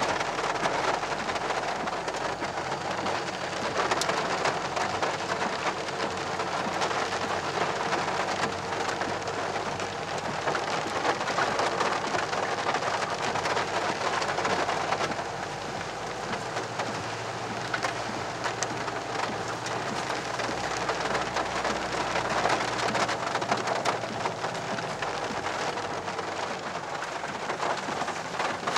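Rain drumming on the roof and windscreen of a moving four-wheel drive as a steady patter of drops, heard from inside the cab, with a low rumble from the vehicle underneath.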